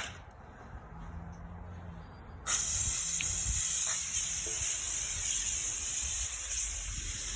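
Air hissing out of a tubeless 29-inch mountain bike tire's valve as it is let down, starting suddenly about two and a half seconds in and slowly easing off, with some tire sealant spitting out along with the air.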